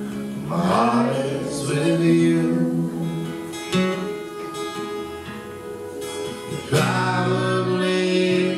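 Live band music: strummed guitar chords with held notes and singing, with lap steel guitar in the band.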